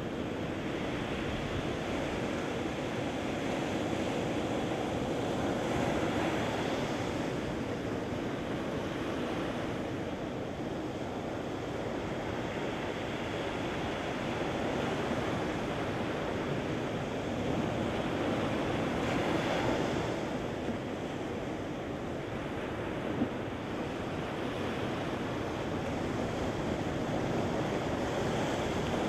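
Ocean surf washing up a sandy beach: a continuous rush of breaking waves and foam that swells a few times as larger waves come in and break.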